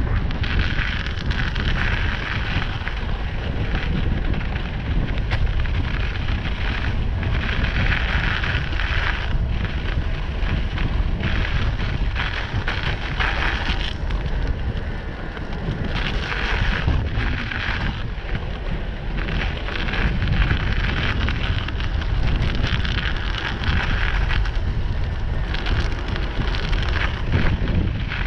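Wind buffeting the microphone of a moving camera, with the hiss of tyres rolling over a wet, snow-dusted path underneath; the hiss swells and fades every second or two.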